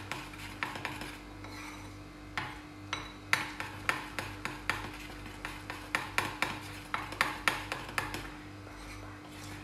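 Metal spoon beating thick gram-flour (besan) batter in a bowl, clicking and scraping against the bowl in quick, irregular strokes as lumps are worked out. A faint steady hum runs underneath.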